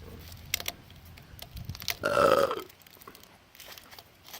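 A man's loud burp about two seconds in, over a low steady hum that stops soon after, with a few faint clicks and rustles.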